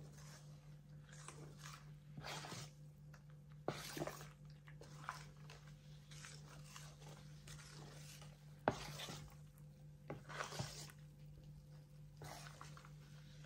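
Metal whisk stirring rice-flour batter in a stainless steel bowl, breaking up the lumps that form when the flour is mixed with cold water: soft, irregular swishing strokes with a few sharp clinks of the whisk against the bowl, the sharpest about nine seconds in.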